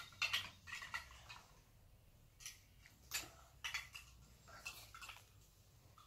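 Plastic Lego bricks faintly clicking and clattering in irregular taps as they are handled and pressed together.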